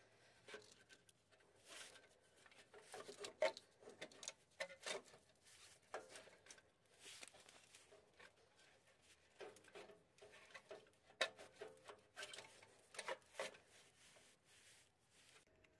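Faint scattered clicks, scrapes and knocks of a replacement starter motor being slid up into place and fitted against its mounting, handled in nitrile gloves.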